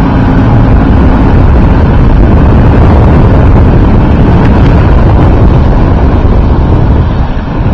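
Loud, steady rumble of a small motorboat under way: its engine and the hull running over the chop, mixed with wind buffeting the microphone. The level dips briefly near the end.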